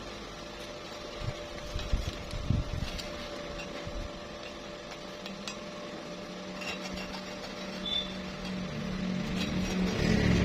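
A handful of sharp knocks, about one to three seconds in, over a steady low hum that grows stronger in the second half.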